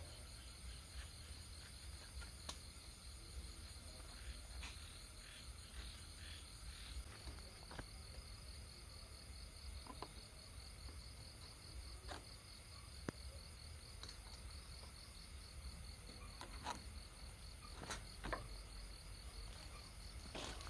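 Night chorus of crickets: steady, high-pitched pulsing trills, with a few scattered faint clicks and knocks.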